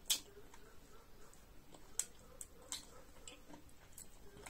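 Scattered soft clicks and smacks of a person eating, chewing with the mouth close to the microphone, about half a dozen spread unevenly.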